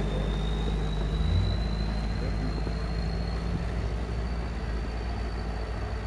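Toyota 4x4 trial truck's engine running at low revs as it crawls over a muddy track, a steady low drone that eases off slightly as the truck moves away.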